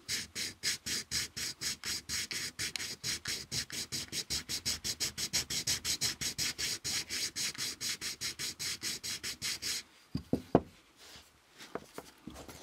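Plastic model car grille rubbed back and forth on 180-grit sandpaper backed by an MDF board: quick, even scratching strokes, about five or six a second, to sand down the grille's bottom edge. About ten seconds in the sanding stops, followed by a few sharp clicks as the part and board are handled.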